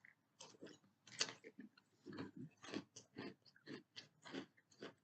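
A person chewing a mouthful of Froot Loops cereal with marshmallows, with faint, quick, repeated crunches, about three a second.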